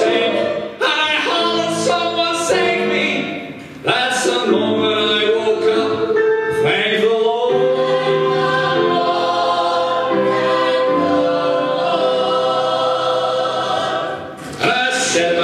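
Male lead and a mixed ensemble of singers performing a Broadway show tune live, with grand piano. The voices hold one long chord from about halfway to near the end, then break off briefly and come back in.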